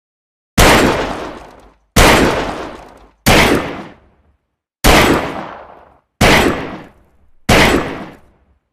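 Saturday night special revolver firing six shots, one about every 1.3 seconds. Each shot is a sharp, loud crack with a ringing tail that dies away over about a second.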